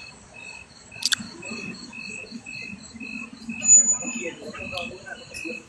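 Crickets chirping in a steady train of short high pulses, about two a second, over a faint murmur of background voices. A sharp click comes about a second in and a brief high-pitched tone just before four seconds in.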